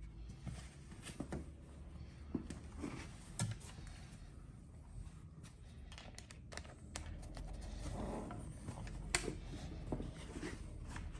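Hands feeding a rope through the metal eyelets of a heavy canvas hood and hooking it onto rope hooks: rustling of canvas and rope with scattered small clicks and taps.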